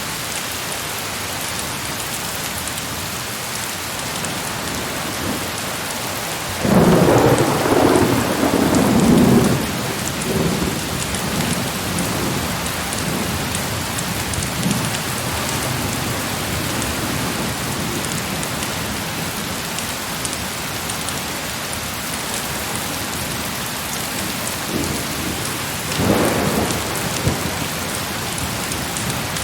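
Heavy rain falling steadily, with a roll of thunder rumbling about a quarter of the way in and trailing off over several seconds, and a shorter rumble near the end.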